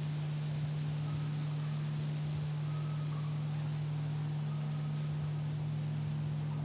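A steady low hum over a faint hiss, with a few faint, short, high calls from the wild turkeys feeding in the leaves.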